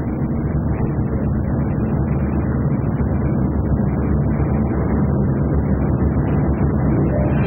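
Four radial piston engines of a B-29 Superfortress droning overhead in flight: a steady, fast-beating low drone that gets a little louder as it goes on, heard on a muffled old film soundtrack.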